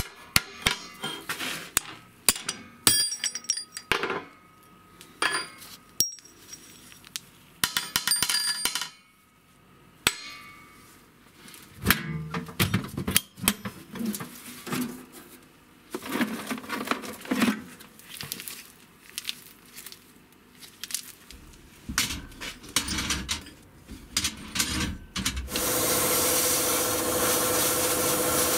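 Metal parts and hand tools knocking and clinking, many separate strikes, some of them ringing. About three seconds before the end a steady, louder rasping noise starts and holds.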